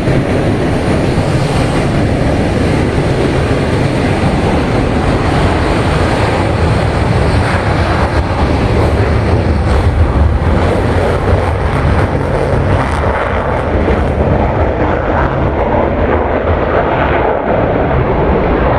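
Fighter jet engines running loud and steady: a deep rumble under a rushing hiss. The highest part of the hiss fades about three-quarters of the way through.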